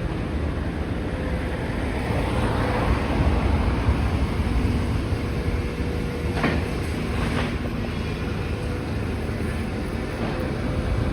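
Demolition excavator running steadily while clearing rubble, with two sharp knocks a second apart past the middle.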